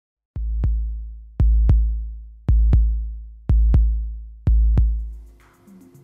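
Electronic music: five pairs of deep drum-machine bass-drum hits, one pair about every second, each hit ringing on low and fading. The pattern dies away near the end.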